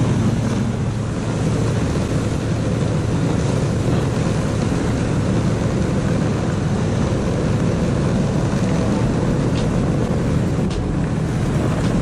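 Small engine of a motorized towing unit (motosobaka) running steadily while it tows sleds over a packed snow road, mixed with the steady low rumble of the sled moving over the snow.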